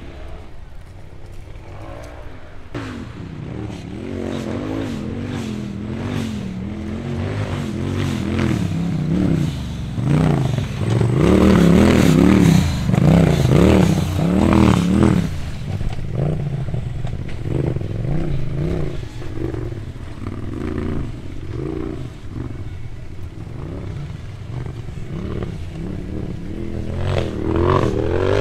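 Rock bouncer buggy's engine revving hard and unevenly, pitch surging up and down, with scrapes and knocks as the buggy works over rock. It is loudest and busiest about ten to fifteen seconds in.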